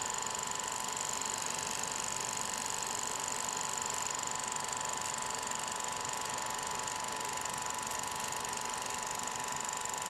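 Steady mechanical whirring with a fine, dense ratcheting texture and a steady high whine, a gears-and-clockwork sound effect under an animated logo; it cuts off suddenly near the end.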